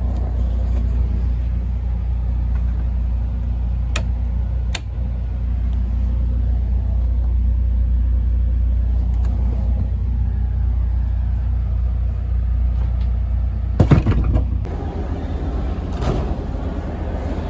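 Steady low rumble inside a moving vehicle, with a couple of sharp clicks. A loud knock comes near the end, after which the deep rumble drops away.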